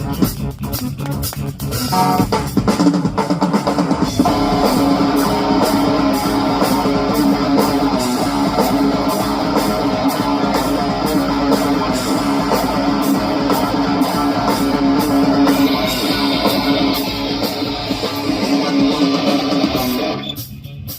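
Live rock band playing: electric guitars, bass guitar and drum kit, with no singing, dropping away near the end.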